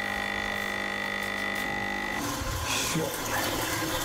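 Coffee machine humming steadily as it dispenses coffee, the liquid running audibly. The hum cuts off about two seconds in, leaving a low mechanical rumble.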